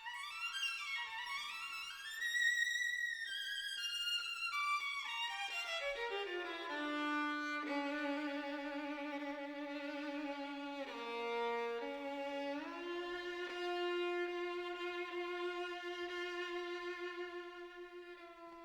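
Background music: a bowed violin melody that steps down from high notes in the first few seconds, then plays long, held notes with vibrato.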